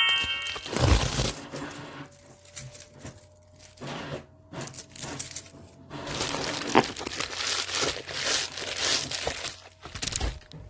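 Rustling and crinkling handling noises with irregular clicks and knocks, over a faint steady tone.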